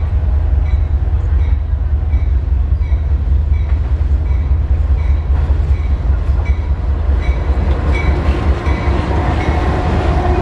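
Diesel locomotives of a freight train approaching and starting to pass close by, a heavy low rumble that grows louder near the end as the engines come alongside. A short ring repeats about twice a second throughout, a locomotive bell ringing.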